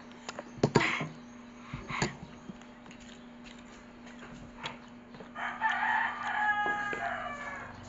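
A rooster crowing once, a single call of about two seconds that falls in pitch at its end, starting about five and a half seconds in. Before it, a few sharp clicks of a spoon against a bowl about a second in and again at two seconds.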